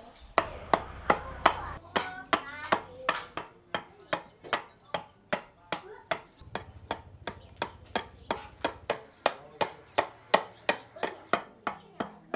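Repeated sharp strikes on wood, a little under three a second and very even, each with a short ring, typical of hammering or mallet work on a wooden workpiece.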